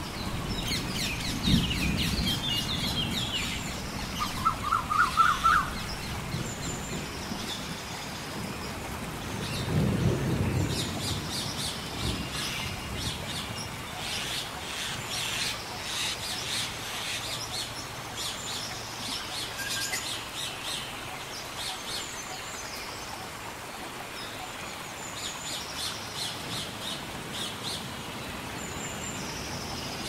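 Rainforest storm ambience: steady rain with deep rumbles of thunder about two seconds in and again around ten seconds, while birds chirp and call throughout, including a quick run of notes around five seconds.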